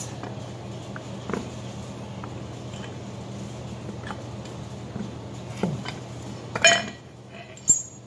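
Hand arbor press pressing a steel bearing into the machined pocket of an aluminium torque-converter cover: a few light metal clicks, then a loud metallic clank that rings briefly, and a sharp click near the end as the bearing seats on its ledge. A steady low hum runs underneath.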